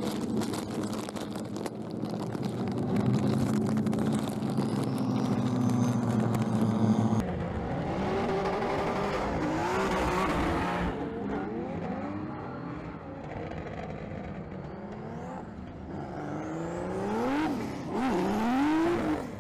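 Drift cars' engines, among them the LS3 V8 of a Fiat Strada pickup, running hard as they slide through corners. For about seven seconds there is a steady, noisy drone; then the sound changes abruptly to engines revving up and down again and again, which is how the throttle is worked through a drift.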